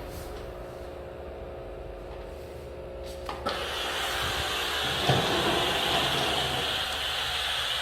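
Kärcher SC4 EasyFix steam cleaner: a steady hum, then a couple of clicks a little over three seconds in, and a loud, steady hiss of steam jetting from the nozzle.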